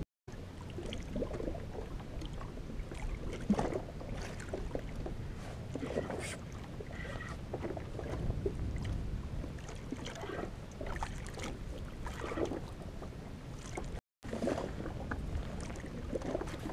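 Choppy water lapping against the hull of a drifting jet ski, with wind on the microphone and scattered small knocks. The sound drops out for a moment near the start and again near the end.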